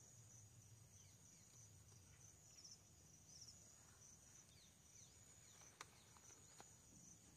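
Near silence, with a faint, steady high-pitched insect trill, crickets in the surrounding field, and a few faint clicks.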